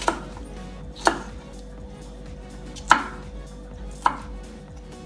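Chef's knife dicing an orange sweet pepper on a wooden chopping board: four sharp knocks of the blade against the wood, spaced irregularly about one to two seconds apart.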